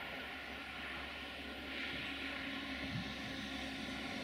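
Distant 060-EA electric locomotive hauling a passenger train as it approaches: a steady rumble and hum with a few faint steady high tones, a stronger low tone coming in about halfway through.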